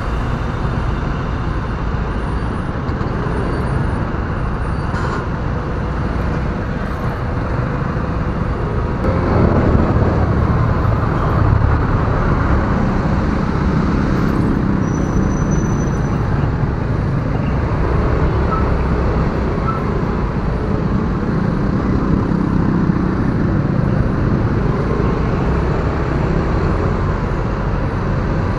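Riding noise from a motorcycle in city traffic: steady wind rush on the microphone over the low running of engines, growing louder about nine seconds in.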